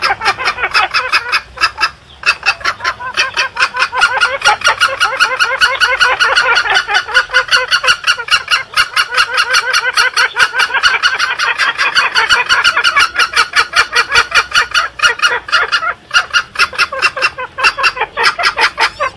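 Green junglefowl clucking in a rapid, continuous run of short notes, about five a second, with brief breaks about two seconds in and near the end. It is a hunter's lure call (pikat) played to draw wild junglefowl in.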